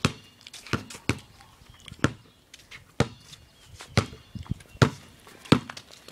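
A basketball dribbled on concrete pavement: sharp, separate bounces at an uneven pace of about one or two a second.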